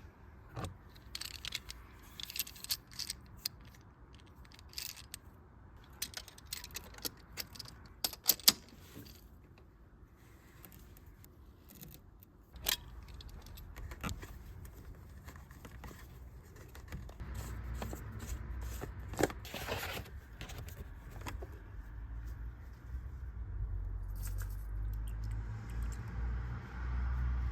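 Hand tools clinking and clicking against metal in quick, irregular strokes for the first several seconds, then only now and then. A low rumbling noise builds through the second half.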